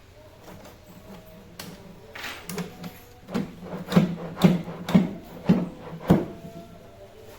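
A run of knocks, a few light ones and then six strong, evenly spaced ones about two a second, each with a short low ring, stopping about a second before the end.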